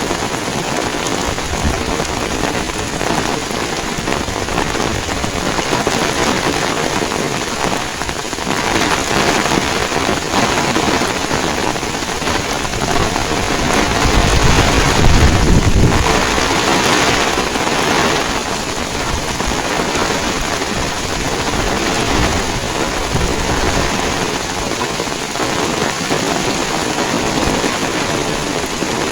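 Heavy rain falling and pattering on surfaces in a steady hiss, swelling louder with a deeper rumble about halfway through.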